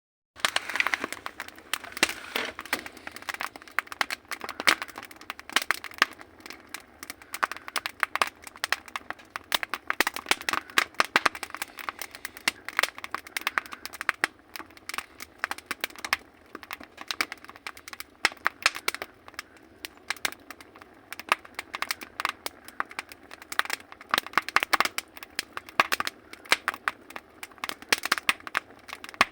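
Firewood crackling in a wood stove: many irregular sharp snaps over a soft hiss of the burning fire.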